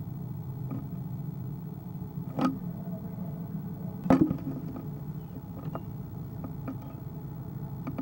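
Sharp knocks and taps on a wooden owl nest box as an eastern screech owl leaves the entrance hole: one about two and a half seconds in, a louder one about four seconds in, then a few faint ticks, over a steady low hum.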